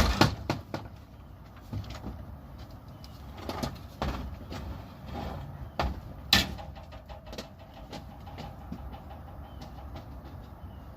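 Several sharp knocks and clunks from handling glass-paned window doors as they are taken down, the loudest right at the start and about six seconds in, over a steady low rumble.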